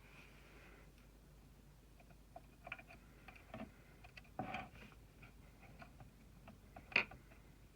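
Scattered light clicks and taps of small computer hardware being handled, starting about two seconds in, with one sharp click near the end.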